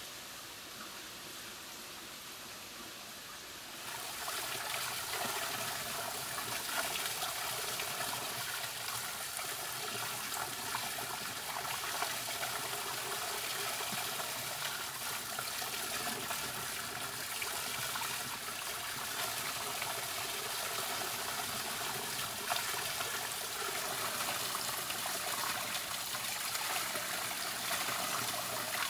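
Spring water pouring from a pipe spout in a brick well-head and splashing onto wet cobblestones: a steady trickle and splash. It comes in about four seconds in, after a fainter steady hiss.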